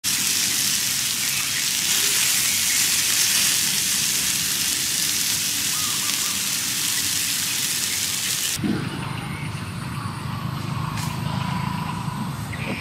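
Beef steak sizzling on a hot cooking stone, a steady crackling hiss that cuts off suddenly about eight and a half seconds in. Low rumbling outdoor ambience follows.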